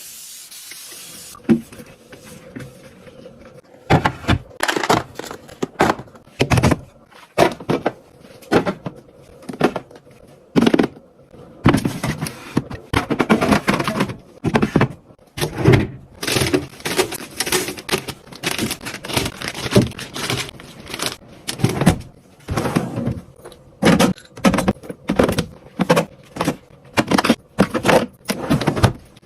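Plastic food-storage boxes and bags being handled: a quick, irregular run of clicks, knocks, scrapes and crinkles, with a soft hiss in the first few seconds.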